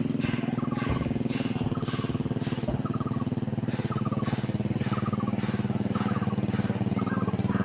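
An engine running steadily at idle with an even, unchanging hum, with short chirping calls repeating about every second over it.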